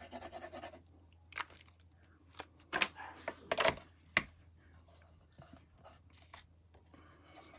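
Card stock and paper crafting tools being handled on a craft mat: rustling and sliding paper with a scatter of sharp clicks and taps, the loudest about a second and a half to four seconds in.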